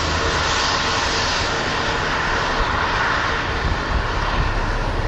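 Steady rushing wind noise with a low, uneven rumble of wind buffeting the microphone.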